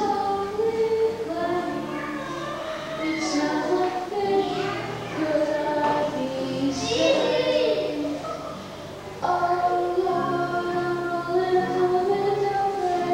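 A child singing a song with musical accompaniment; a louder new phrase begins about nine seconds in.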